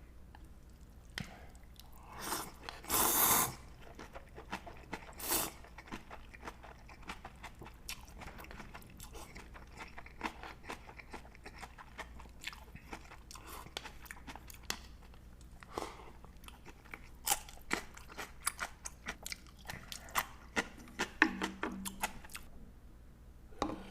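A person eating close to the microphone: a longer, louder noisy sound about three seconds in, then many short crunches and smacks of chewing, with a denser run of crunches after the middle.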